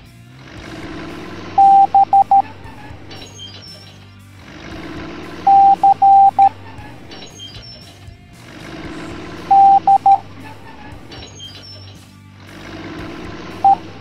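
Morse code beeps from a single steady electronic tone, keyed in long and short pulses: dah-dit-dit-dit (B), dah-dit-dah-dit (C) and dah-dit-dit (D), each a few seconds apart, and a single dit (E) near the end.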